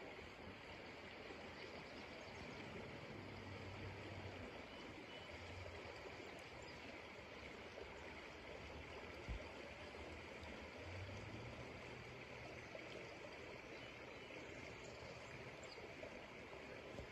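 Faint, steady rush of river water flowing around a kayak, with a single low knock about halfway through.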